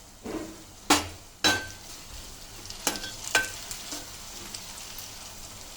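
Sliced onions frying in hot oil in a pan, a steady sizzle, while a metal spoon stirs them, knocking against the pan four or five times, a couple of knocks ringing briefly.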